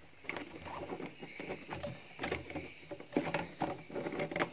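Irregular plastic clicks, knocks and rustling as a hand works the mesh strainer basket in the filler opening of a battery-powered knapsack sprayer's plastic tank.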